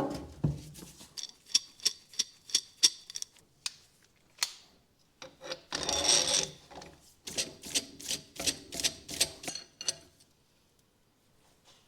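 Hand tools clicking and clanking on metal in a quick run of sharp clicks, about three or four a second, while a tool is worked to pull the bearing out of a trailing arm. A longer scraping noise comes about six seconds in, then the clicking resumes.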